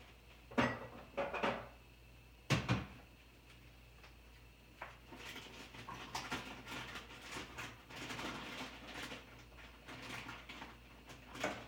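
Several sharp knocks close to the microphone in the first few seconds, then continuous rustling and scraping with small clicks, like something handled or shifting against the phone.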